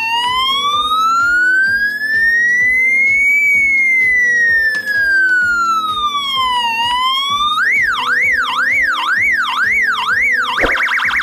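Electronic siren tone from an Arduino Nano project. It makes a slow high-pitched wail that rises over about three seconds and falls back, then switches to a faster yelp sweeping up and down about twice a second. Near the end it changes to a rapid warble. Background music with a steady beat plays underneath.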